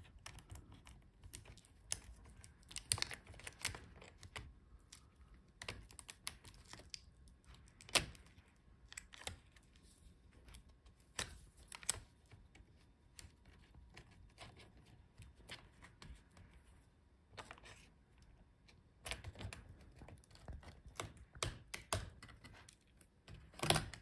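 Faint, irregular small clicks and taps of a plastic spudger and fingertips prying at a laptop's display cable connector and retaining bracket on the motherboard.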